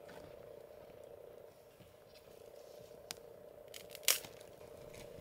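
Small wood fire burning under a bucket on a grate, with a sharp click about three seconds in and a louder cluster of snaps about four seconds in as firewood cracks or is handled, over a faint steady hum.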